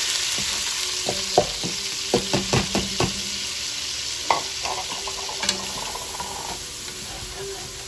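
Frozen diced onion, bell pepper and celery (Trinity) sizzling in hot rendered sausage fat in a pot, the sizzle slowly dying down. A utensil stirring the vegetables knocks against the pot several times between about one and three seconds in, and once more near the middle.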